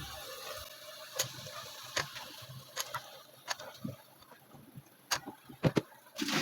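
Cut potato and eggplant pieces and a cooking spoon knocking in a pan of masala: scattered light clicks and knocks, some eight in all at irregular intervals, over a faint background hiss.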